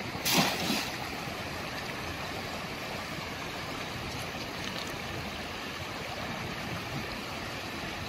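A cast net splashes onto the water about half a second in, over the steady rush of a fast mountain stream running over rocks.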